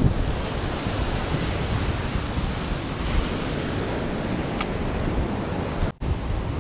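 Ocean surf washing up on a sandy beach, a steady rush with wind buffeting the microphone. The sound drops out for an instant near the end.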